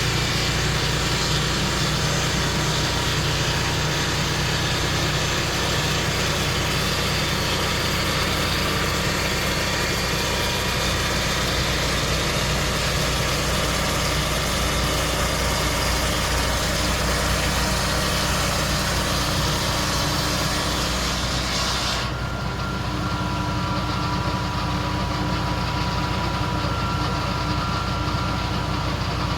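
Sawmill engine running steadily at a constant speed, with a higher hissing noise over it that cuts off suddenly about three quarters of the way through, leaving the engine running on.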